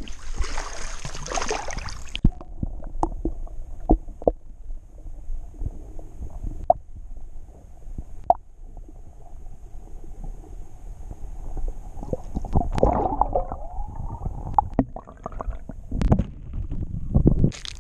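Lake water splashing, then the muffled gurgle and scattered knocks of water heard through a camera held underwater, with more splashing about twelve seconds in and again near the end.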